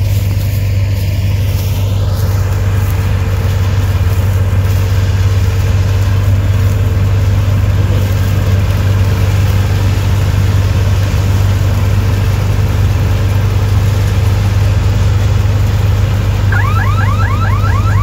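Combine harvester running steadily as it cuts standing wheat, with a constant low engine drone. Near the end a rapidly repeating rising chirp starts, about four a second.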